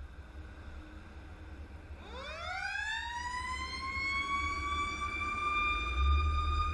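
Fire engine siren winding up: a wail that starts about two seconds in, climbs smoothly in pitch and levels off into a steady high tone, over a low rumble.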